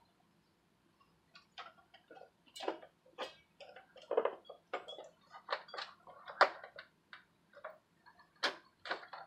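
Irregular clicks, taps and light knocks of hands and fingernails handling the plastic housing of an Ionic Pro air purifier. They start about a second in and come several times a second, some duller than others.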